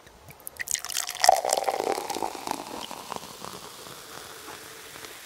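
A few light clicks, then cider pouring and fizzing for about two seconds, easing into a faint steady fizz.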